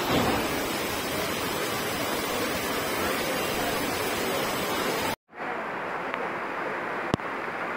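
Steady roar of floodwater rushing through a street in a heavy downpour. About five seconds in it breaks off for an instant and returns duller, with a sharp click shortly after.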